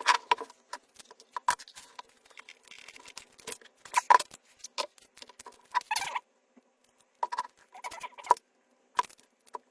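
Irregular light clicks and short scrapes of hands and tools handling the lithium-ion cell stack of an electric-scooter battery pack as it is worked loose.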